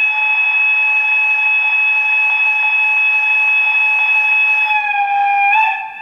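Long horn sound of an LGB 20755 G-scale BR139 electric locomotive model, played by its DCC sound decoder: one long, steady horn blast that dips slightly in pitch near the end, then fades out.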